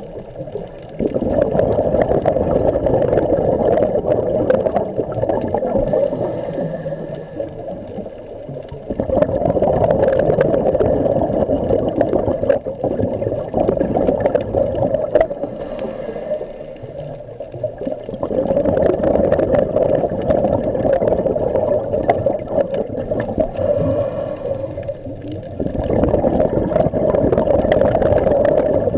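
Scuba diver breathing through a regulator underwater: long bursts of exhaled bubbles alternating with short hissing inhalations, about every eight seconds.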